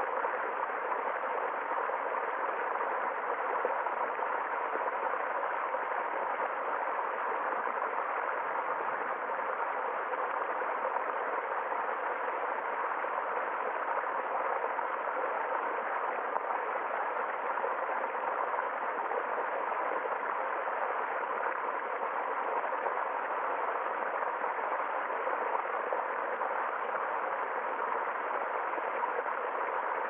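Small woodland stream flowing over stones and a little cascade: a steady, unbroken rush and babble of water.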